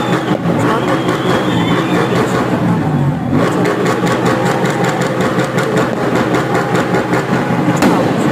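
Loud, busy street noise from a celebrating crowd on a congested road: vehicle engines running, voices, and a dense run of sharp cracks.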